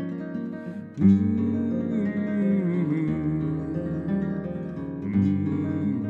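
Nylon-string classical guitar played solo, an instrumental passage: held notes die away, then a strongly struck chord about a second in opens a plucked melody over the bass, with another accented chord near the end.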